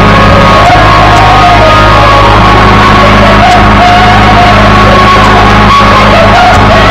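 A young woman singing a gospel song into a microphone in long, held notes that waver in pitch, over a steady instrumental backing, very loud throughout.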